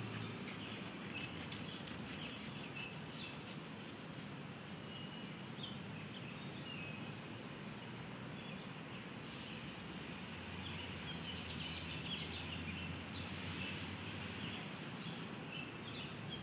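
Steady outdoor background noise with faint, brief bird chirps here and there, and a low hum for a few seconds in the second half.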